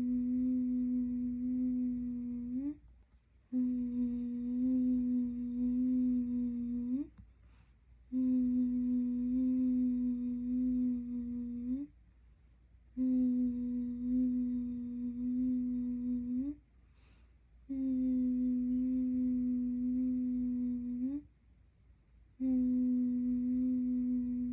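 A person humming one low held note over and over to lull a baby to sleep: each hum lasts about three and a half seconds, holds a steady pitch and lifts slightly at the end, with a short pause for breath between hums.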